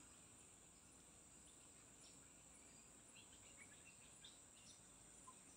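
Near silence: faint forest ambience with a steady high insect drone and a few faint, scattered chirps.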